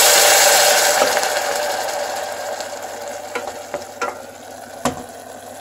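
Hot pan of caramelised carrots, onion and garlic sizzling and hissing as white wine deglazes it, the hiss dying away over the first few seconds. A wooden spoon then stirs, knocking against the stainless pot a few times.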